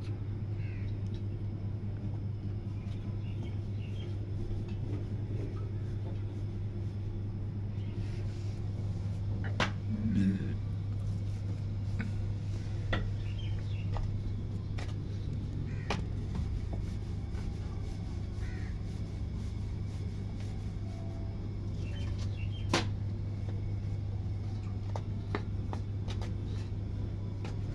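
Roti-making sounds: scattered short clicks and knocks of steel kitchen utensils over a steady low hum.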